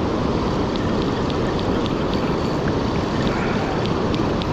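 Steady rush of fast-flowing river water, with faint irregular ticks over it.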